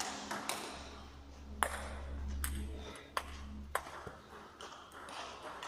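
Table tennis rally: the celluloid-type ball clicking sharply off the bats and table about every half second to a second and a half, with a faint echo. The rally ends about four seconds in.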